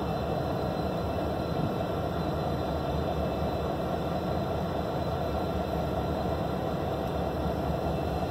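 Several BPRR diesel-electric locomotives rolling slowly, their engines giving a steady low rumble.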